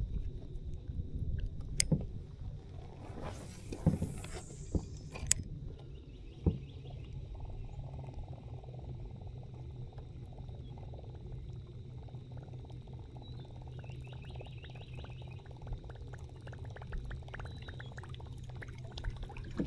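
Kayak paddling in shallow water: water splashing and dripping off the paddle, with a few sharp knocks in the first several seconds, over a steady low rumble.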